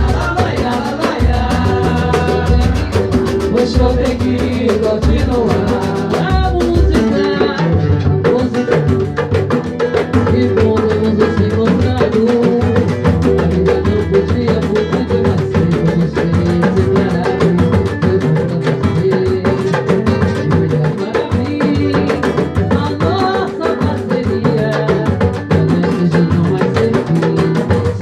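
Music from a percussion group: drums playing a steady, busy rhythm, with some singing.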